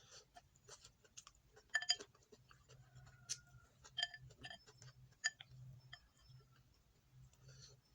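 Eating utensils clicking and clinking against a bowl: a run of light clicks, several with a short ring, the loudest a pair of clinks about two seconds in.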